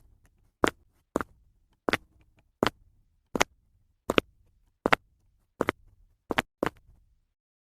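Sharp, short sound-effect hits like cap-gun snaps, laid down as the beat of a song remake. They come in a steady rhythm about once every three-quarters of a second, with two in quick succession near the end.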